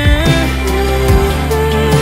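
Music: a song with drums, bass and a gliding melody line.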